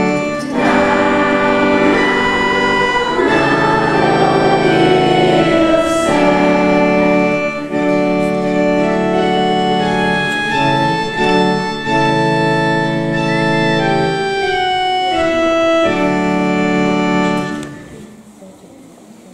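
Organ-voiced keyboard playing held chords that change every second or two, ending on a final chord that dies away near the end.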